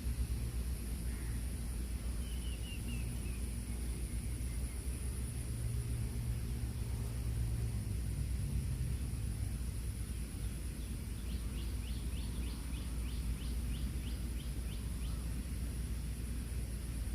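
Rural outdoor ambience: a steady low rumble under a steady high-pitched drone typical of insects, with a few short chirps a couple of seconds in. Past the middle comes a quick run of about a dozen ticking chirps, roughly three or four a second.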